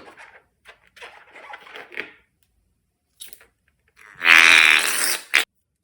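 Soft sticky crackles of slime being handled, then about three and a half seconds in a balloon gives a loud buzzy squeal lasting about a second, ending in a sharp snap.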